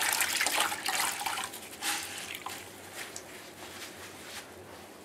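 Water splashing and dripping into a bucket as a wet rag is handled over it, loudest in the first second with another splash about two seconds in.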